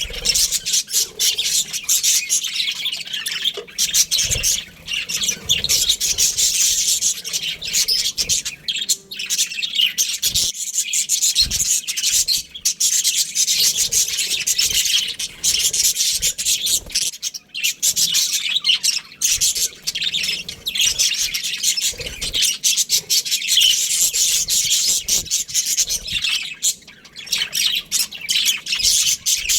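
Budgerigars chattering without a break: a dense stream of rapid high chirps and warbles.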